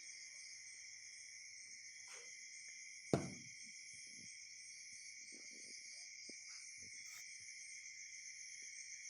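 Steady high-pitched chirring of insects, in the manner of crickets, with one sharp thump about three seconds in.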